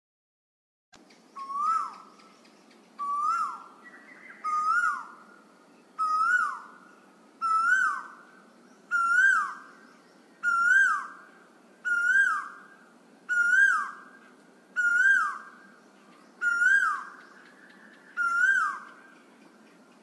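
A koel repeating its two-note 'koo-oo' call about a dozen times, roughly one call every second and a half, each call rising and then dropping in pitch, over a faint hiss.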